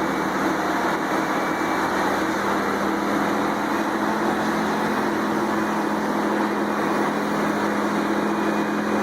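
Large engine-driven wood chipper running at a steady speed: a constant mechanical drone with a low, even hum and no separate impacts.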